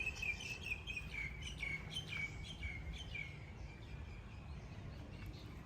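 A bird calling a rapid series of short chirps, about three to four a second, that fade away about three seconds in, over a low steady background rumble.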